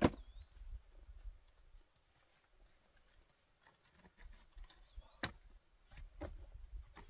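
A folding camp chair being handled and set up: a sharp click at the start and a few lighter knocks about five to seven seconds in. Insects call steadily throughout with a high, evenly pulsing trill.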